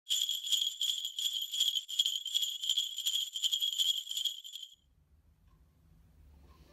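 Sleigh bells shaken in a steady rhythm for about four and a half seconds, then stopping.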